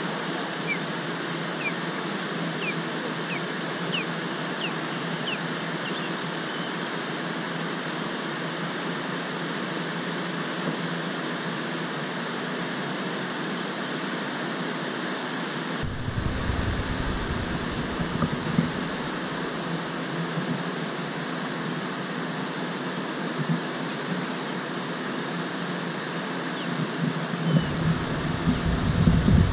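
Steady rush of water spilling through a dam's gates, with a low rumble coming in about halfway through and again near the end.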